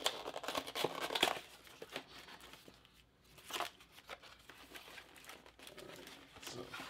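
Packaging crinkling and tearing as a cardboard card-game box is opened by hand. The rustling is busiest for about the first second, then comes in a few shorter bursts later.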